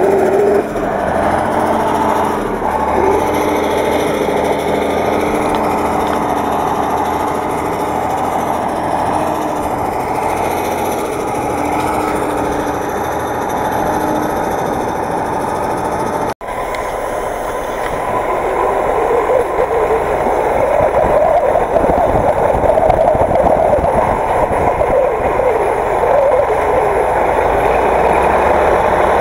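Tractor diesel engines running hard: a T-150 stuck in soft ground with its wheels slipping. After a brief dropout about sixteen seconds in, a second wheeled tractor's engine is heard close up, louder, as it works on the tow cable to the stuck T-150.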